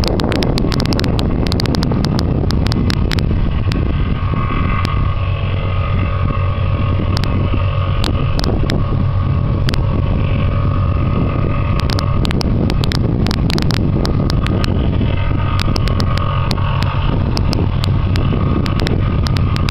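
A steady low engine drone, with wind buffeting the microphone in many short crackles.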